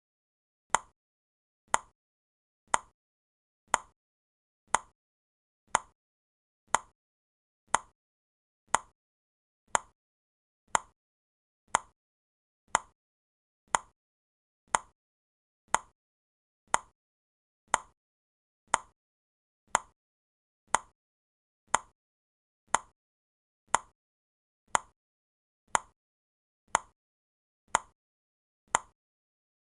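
Countdown timer ticking: short, sharp clock-like ticks, evenly spaced at one per second, starting about a second in.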